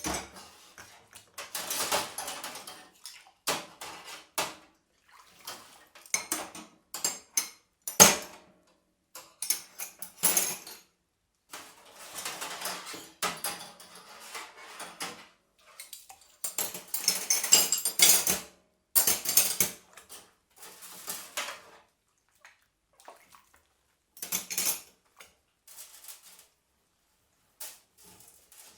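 Dishes being washed by hand in a sink: water splashing and sloshing in short bouts, with sharp clinks of plates and cutlery knocking together, one standing out about eight seconds in.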